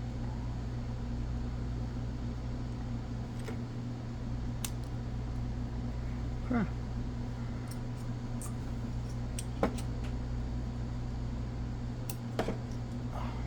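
Steady electrical or fan hum with a few light, sharp clicks and taps from small parts of an HO-scale model locomotive being handled and fitted back together.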